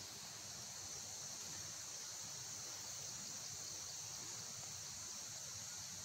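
A steady, high-pitched chorus of forest insects, an unbroken hum with no pauses.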